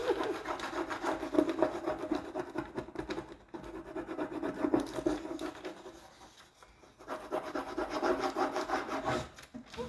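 A flat wooden stick rubbed quickly back and forth over a rub-on transfer's backing sheet on a hat box, burnishing the transfer down. The strokes are rapid and dry, ease off about six seconds in, then pick up again.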